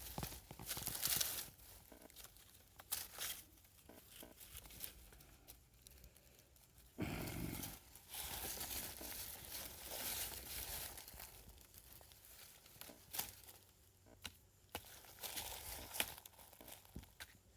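An animal eating an egg: faint, irregular crackling and rustling with scattered sharp clicks, the shell being crunched and picked at.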